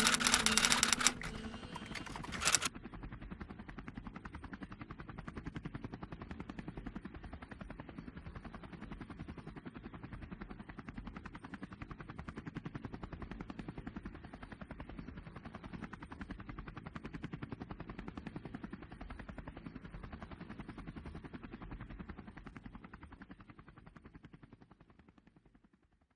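Background music that stops about a second in, followed by a steady, rapid mechanical rattle that fades out near the end.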